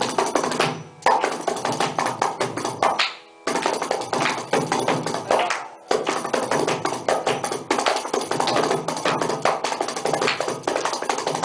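Khanjira, the South Indian lizard-skin frame drum with a jingle, played solo in fast, dense strokes in mishra nade (groupings of seven), with brief breaks about one, three and six seconds in.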